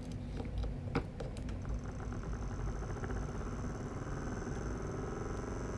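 Homemade reed switch motor spinning fast on 4.5 volts, making a rapid, steady mechanical buzz. A thin high whine comes in about two seconds in.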